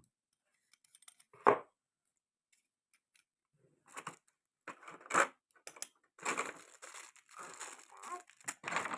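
Product packaging being handled and torn open, crinkling and tearing in scattered bursts that thicken into steady rustling in the second half, with one sharp snap about a second and a half in.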